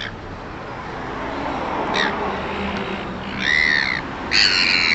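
Seagulls squawking: a short call about two seconds in, then two longer, louder harsh calls near the end.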